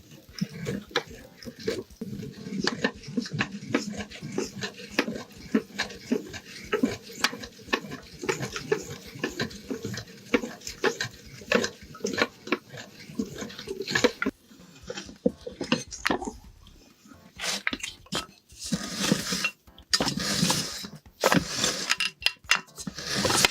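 Meat grinder crushing soap: dense rapid crackling and clicking, then near the end a few louder, separate squelching bursts.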